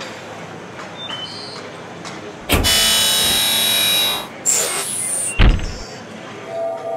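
Animation sound effects of a door: a sudden loud rushing noise lasting about a second and a half as it opens, then a sharp bang as it slams shut near the end.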